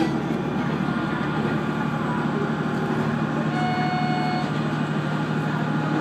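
KiHa 120 diesel railcar running along the line, heard from inside the car: a steady engine drone with wheel and rail noise. A brief steady high tone sounds about four seconds in.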